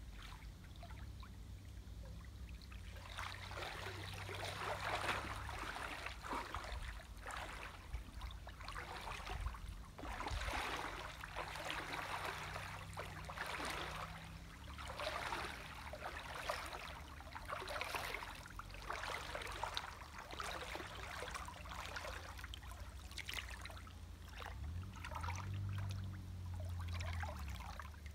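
Water splashing and sloshing around a person's legs as he wades through a shallow creek, in a steady stride of roughly one splash a second that starts about three seconds in.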